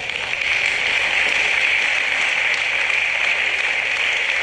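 Loud, steady hiss of noise with no pitch to it, strongest in the upper-middle range.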